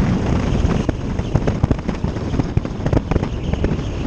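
Motorcycle riding at speed: a steady low engine rumble under wind buffeting the microphone, broken by a dense, irregular crackle of pops.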